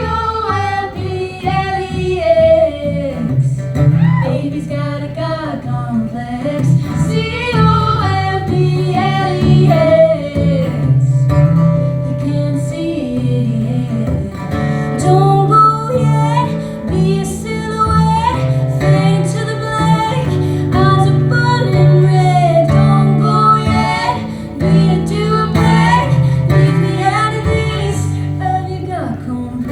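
Live performance of a song: a woman singing with acoustic guitar accompaniment and a steady bass line.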